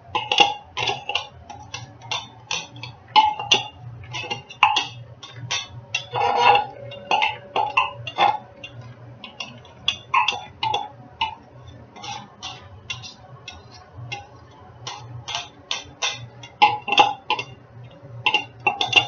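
Knife tapping and scraping inside a small clear plastic chopper bowl, knocking minced garlic out into a freezer bag: irregular sharp plastic clicks, a few a second, with pauses.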